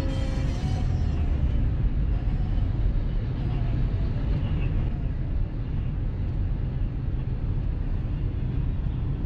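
Steady road and engine noise of a car cruising at highway speed, heard inside the cabin.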